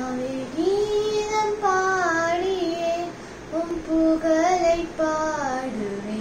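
A young girl singing a Tamil Christian hymn to Mother Mary solo and unaccompanied, in long held notes that slide up and down in pitch.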